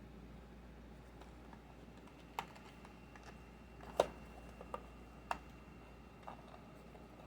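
Scattered sharp clicks and taps of small keychain packaging being handled, about five over several seconds, the loudest near the middle.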